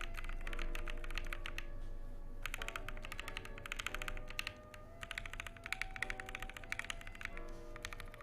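Fast typing on a KBD Fans MK67 V2 custom mechanical keyboard with a polycarbonate case and brass weight, fitted with GMK Red Samurai keycaps: runs of rapid keystrokes broken by short pauses. Background music plays underneath.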